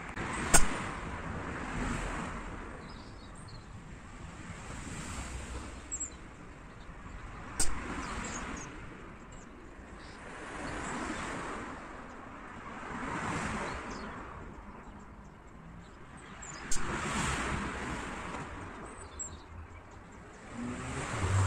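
Outdoor background noise that swells and fades every few seconds, broken by three sharp cracks: about a second in, near 8 s and near 17 s.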